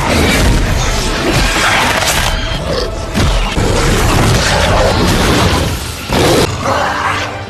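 Film action soundtrack of a monster fight: crashes and booms over loud music.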